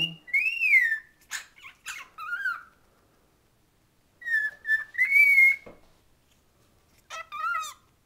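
Cockatiel whistling its song: short whistled notes that rise and fall, mixed with a few sharp clicks, in three bursts with quiet gaps of a second or so between them, the last a quick warbled phrase near the end.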